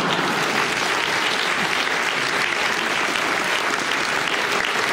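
An audience applauding steadily, dense clapping from many hands.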